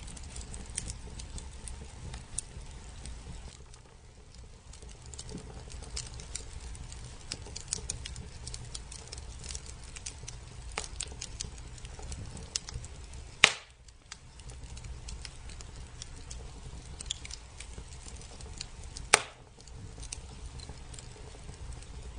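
Firewood logs burning, crackling with many small scattered ticks over a low steady rumble. Two loud sharp pops stand out, a little past halfway and again near the end.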